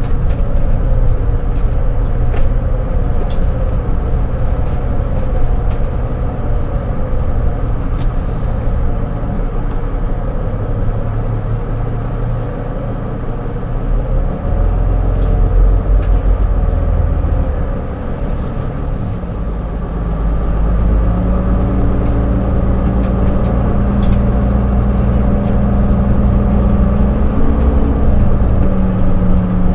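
Motorhome engine and road noise heard from inside the cab while driving slowly, a steady low drone that shifts in pitch a few times, with a few light clicks and rattles.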